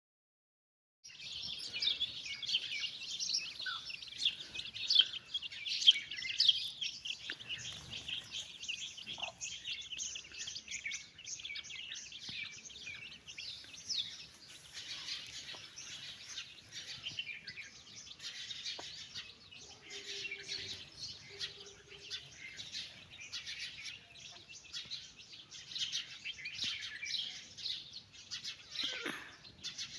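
A brood of domestic chicks peeping continuously, many high-pitched cheeps overlapping, starting about a second in.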